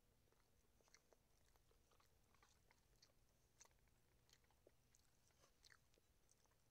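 Faint chewing and eating noises, with scattered small clicks and taps of a fork working through fish on a plate.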